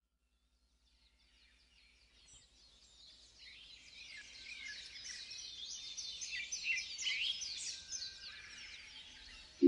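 A chorus of many small birds chirping and twittering, with quick high notes overlapping in rising and falling sweeps. It fades in from silence over the first few seconds and eases off near the end.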